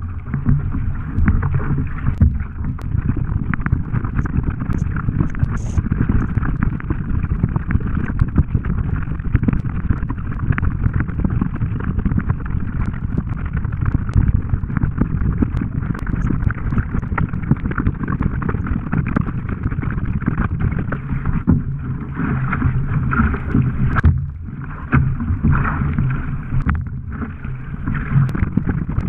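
Surfski paddled hard through open sea: water rushing and splashing along the hull and the blades of the paddle dipping in on alternate sides, a steady wash of noise with brief lulls near the end.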